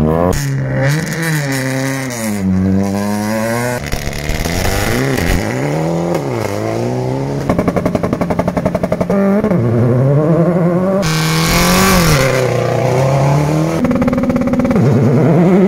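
Turbocharged rally car engines revving hard at a launch, the pitch rising and falling again and again. Around the middle the engine holds its revs with a fast stuttering beat. About 11 seconds in, a burst of loud hissing noise rises over the engine.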